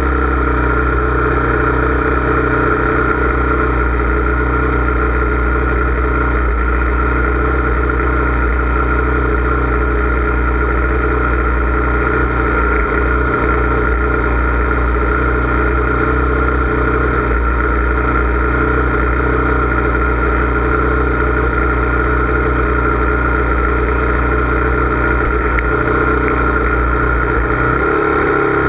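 An engine running steadily at a constant speed, a continuous drone with no revving; its tone shifts slightly near the end.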